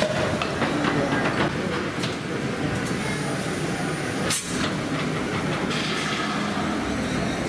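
Victorian steam beam engine built by James Watt & Co. running: a steady clatter and knocking of its valve gear and rods, with hiss that comes and goes and one sharp click about four and a half seconds in.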